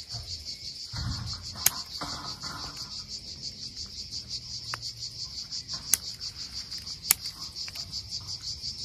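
A steady, high insect chorus pulsing rapidly throughout. Over it come a few sharp snips of scissors cutting rosemary stems (one a little under two seconds in, two more around six and seven seconds) and the rustle of the rosemary bush being handled.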